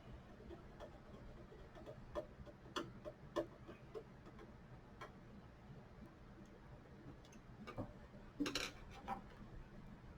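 Faint, irregular clicks and light taps of small metal parts and screws being handled, with a brief louder clatter near the end.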